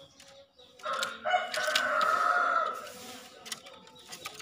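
Green junglefowl rooster crowing once, starting about a second in: a short first note followed straight away by a longer, drawn-out second note, the whole crow lasting about two seconds.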